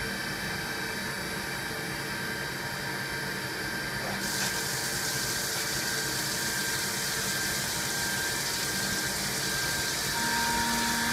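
CNC milling machine running a program with a steady machine hum, then flood coolant switches on about four seconds in and sprays onto the aluminium part with a loud, steady hiss. A new steady tone joins near the end.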